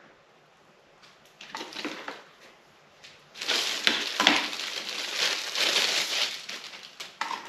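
Plastic packaging rustling and crinkling as small parts are handled. A few brief rustles come about a second and a half in, then a louder, steady crinkling runs for about three seconds.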